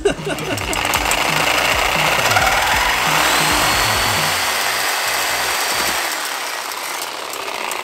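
Power tool cutting through a car's exhaust pipe: a steady harsh noise with a whine that rises in pitch about three seconds in and holds, easing off near the end.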